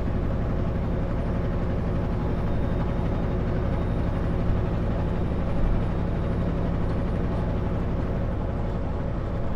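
Kenworth W900L semi truck's diesel engine droning steadily under way, with tyre and road noise, heard inside the cab.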